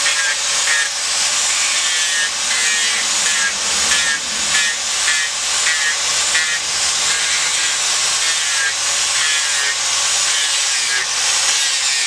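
Electric angle grinder running steadily, its disc grinding into a block of monkeypod wood, with a rasping that pulses about twice a second over a steady motor whine.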